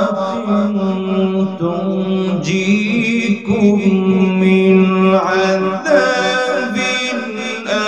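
A man's melodic Quran recitation (tilawat) in Arabic, amplified through a microphone: long held notes that slide and ornament between pitches, changing note every second or two.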